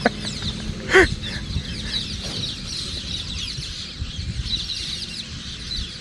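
Birds chirping steadily in many short, quick notes, with one louder call about a second in, over a low rumble.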